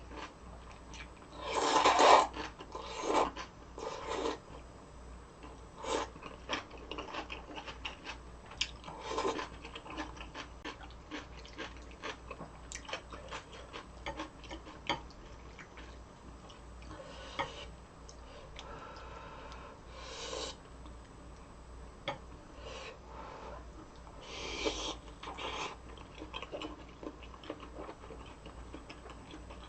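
Close-miked eating of fish-cake udon and crisp kimchi: chewing, crunching and mouth clicks, with several louder noisy bursts of slurping or crunching, the loudest about two seconds in.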